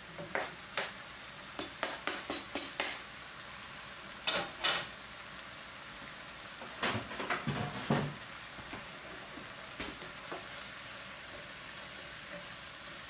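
Chopped bell peppers and chilies going into a hot skillet of sofrito and being stirred with a wooden spoon: a steady frying sizzle, with bunches of clattering knocks from the cutting board and spoon against the pan in the first few seconds and again about seven to eight seconds in.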